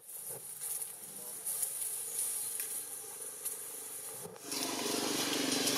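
Outdoor forest ambience with a steady high insect hiss and a few faint clicks. About four seconds in, a louder, lower sound comes in and holds.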